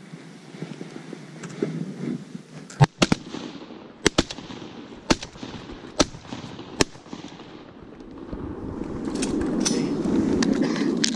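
Brush rustling close to the microphone, broken by about ten sharp clicks and snaps as the hunter shifts in the brush blind and handles his gear. The rustling grows louder near the end.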